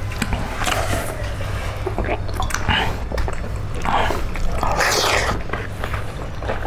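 Close-up eating noises: wet chewing, smacking and squishing as chicken feet and rice are mixed and eaten by hand, with many small clicks and short wet patches over a steady low hum.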